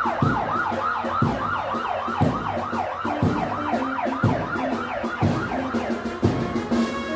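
Police motorcycle escort sirens on a fast yelp, rapid falling sweeps repeating about four or five times a second, over a low drum beat about once a second.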